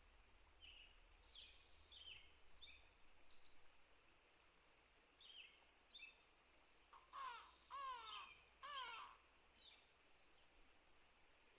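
Faint outdoor birdsong: scattered short, falling chirps, with a louder call of about three falling notes about seven seconds in.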